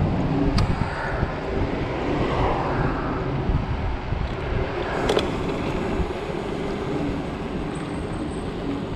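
Ride noise from a Zero 10x electric scooter under way: wind buffeting the microphone and a steady rumble from the tyres on the pavement, with a sharp knock about five seconds in.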